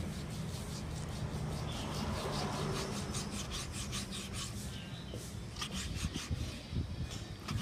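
Chef's knife slicing raw beef thinly on a wooden chopping board: quick repeated strokes of the blade rasping against the wood, about four a second, starting about two seconds in.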